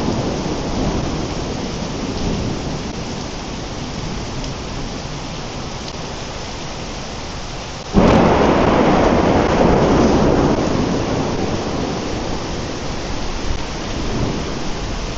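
Heavy rain pouring steadily under a thunderstorm. About eight seconds in, a close thunderclap cracks suddenly and rumbles on for several seconds, slowly fading.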